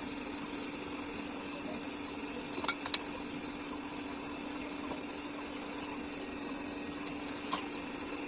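Steady mechanical hum of a running machine, one even tone throughout, with a few short sharp clicks about two and a half to three seconds in and once more near the end.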